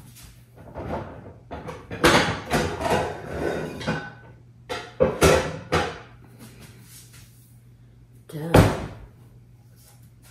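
Pots and pans clattering and cabinet doors knocking as a frying pan is pulled out of a low kitchen cabinet, in two bouts of clatter, then one sharp bang near the end.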